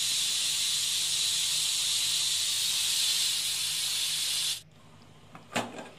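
Stovetop pressure cooker whistling: steam rushes out past the weight valve in a loud, steady hiss and cuts off suddenly about four and a half seconds in, with a faint knock after. It is one of the whistles that mark the cooker reaching full pressure.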